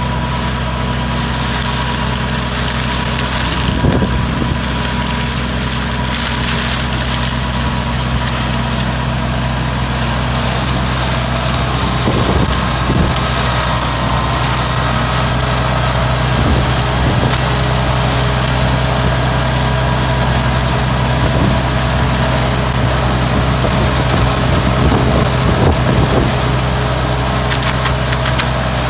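Solis 26 compact tractor's diesel engine running steadily under load, driving a 1.25 m flail mower whose spinning rotor chops through heavy grass. The sound holds even throughout, with a few brief clicks.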